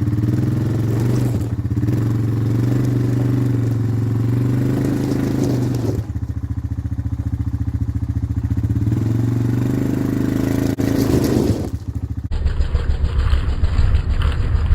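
Small engine of a towing vehicle running at a steady speed, pulling a snowmobile across gravel. Near the end the sound changes abruptly to a rougher, pulsing engine note.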